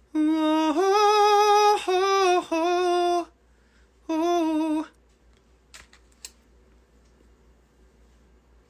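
A man's voice singing a short phrase a cappella: a few held notes for about three seconds, then one more after a short pause. Two faint clicks follow about six seconds in.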